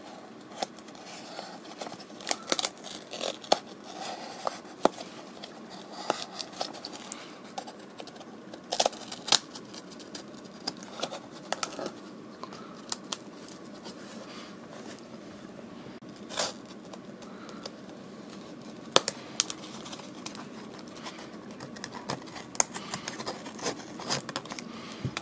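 An old, water-damaged cardboard box with a paper label being slit with a folding knife and torn open by hand: irregular scraping, crinkling and tearing of brittle paper and cardboard, with many sharp clicks and snaps scattered throughout.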